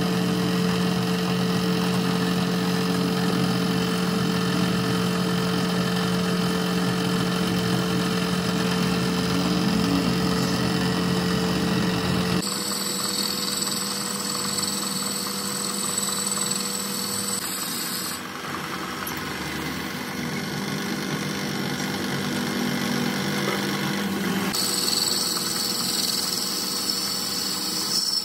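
Metal-turning lathe running with a steady hum while a boring tool cuts the inside of a spinning piston blank. The hum changes abruptly about twelve seconds in.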